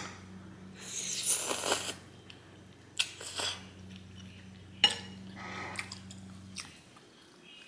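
Close-miked eating of spaghetti: a long slurp of noodles about a second in, then shorter slurps and chewing, with one sharp click. Under it runs a low steady hum that cuts off shortly before the end.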